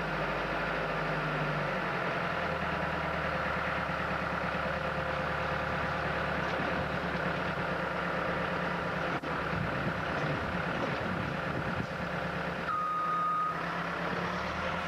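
Case 430 skid steer's diesel engine running steadily under load, with a single short beep near the end.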